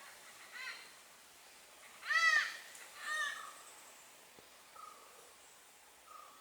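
Malabar grey hornbill calling: three harsh, cackling notes, each rising and falling in pitch, the loudest about two seconds in, then two faint short notes near the end.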